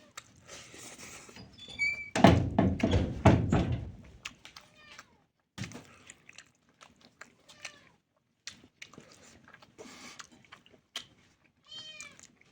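Close-up eating sounds: chewing with wet mouth clicks and smacks. A louder, denser stretch of chewing runs from about two to four seconds in, and a couple of short squeaky sounds come near the start and near the end.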